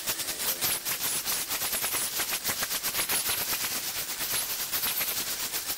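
Wood being cut on a spinning lathe, a rapid, even clatter of about nine sharp hits a second with a faint high squeal over it.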